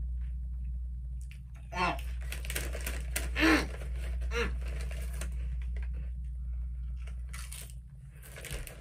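Doritos tortilla chips crunching as they are chewed, and the foil chip bag crinkling as a hand reaches in, over a steady low hum. A few brief voice sounds break in, the loudest about three and a half seconds in.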